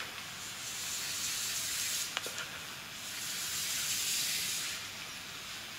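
Chalk scraping along a chalkboard as a long straight line is drawn: a scratchy hiss that swells twice, with a faint tick about two seconds in.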